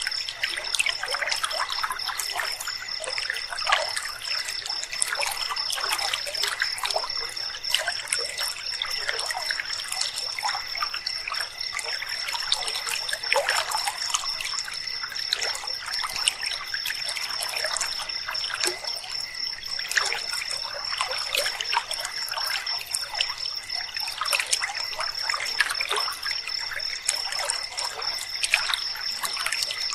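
Flowing river water trickling and splashing, with a steady high, fast-pulsing trill of night insects over it.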